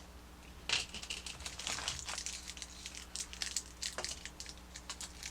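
Toy packaging being handled and opened: plastic bags and packaging crinkling and rustling in quick, irregular crackles, with a louder rustle about a second in.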